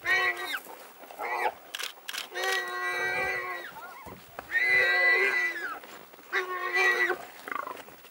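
Warthog squealing in distress while African wild dogs bite and hold it: about five high, drawn-out squeals, some over a second long and some sliding down at the end, with short gaps between them.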